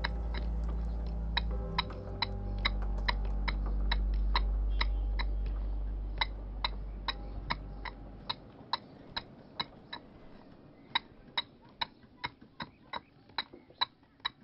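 An iron carving pick chipping at a block of stone to shape a stone cooking pot: quick, regular sharp taps, about three to four strikes a second. A low steady hum sits under the first half and stops about eight seconds in.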